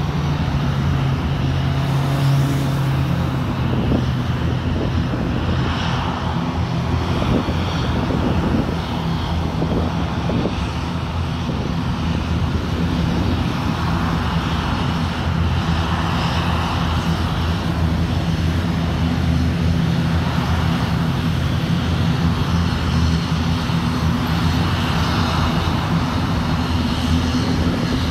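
Twin-engine turboprop airliner's engines and propellers running steadily as it rolls along the runway, a constant low drone.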